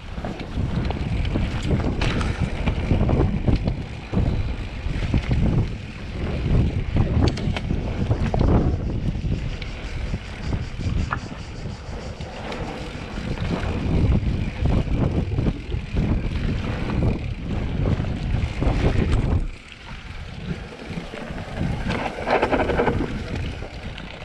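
Wind buffeting the microphone of a camera on a mountain bike descending a dirt downhill trail, with the bike rattling and knocking over rough ground. The rumble surges and eases unevenly and drops off briefly about twenty seconds in.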